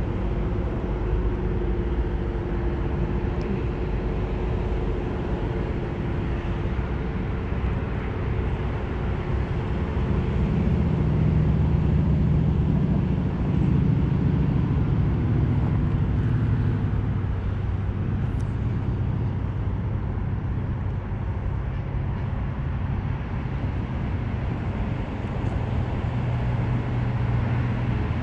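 Road traffic passing on a highway beside the recorder: a steady low rumble of vehicle engines and tyres, with engine drones that shift in pitch and swell louder near the middle as heavier vehicles go by.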